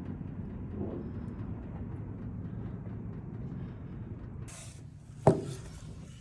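Steady low rumble, with one sharp knock, like metal being struck or set down, about five seconds in. A high hiss comes in just before the knock.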